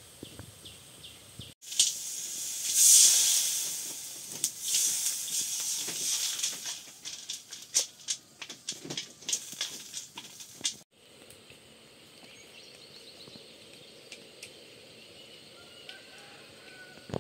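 Food sizzling in hot oil in a pan: a loud hiss a couple of seconds in that slowly dies down, with crackling and spitting throughout, then only a quiet background after about eleven seconds.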